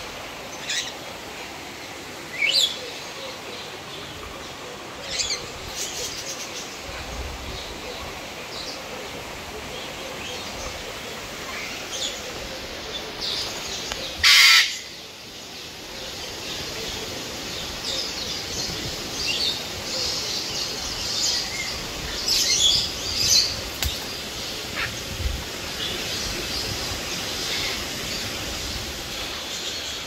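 Mixed birds calling in dense forest: scattered short chirps and whistles over a steady background hiss, busier in the last third, with one loud, short burst about halfway through.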